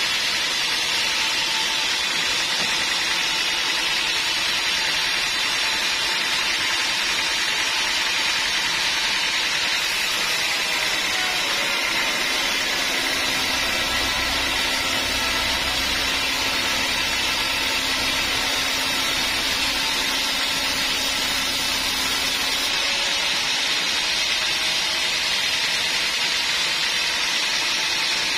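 Sawmill saw running with a steady, loud hiss-like noise. A deeper hum joins from a little before halfway and drops out a few seconds before the end.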